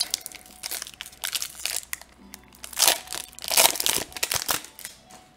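Foil wrapper of a Magic: The Gathering Commander Legends draft booster pack crinkling in the hands as it is handled and opened, in irregular crackly bursts, loudest about three to four seconds in.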